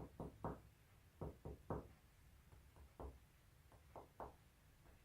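Chest percussion: a finger tapping on another finger laid flat against a person's chest, faint knocks in sets of three at one spot after another, comparing one side of the chest with the other.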